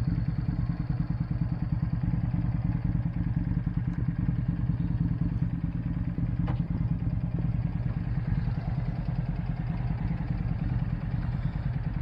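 Car engine running steadily while driving, heard from inside the cabin as a low drone with road noise.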